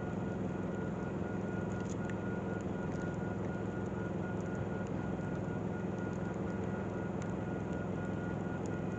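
Steady low engine drone with a faint high-pitched tone held above it.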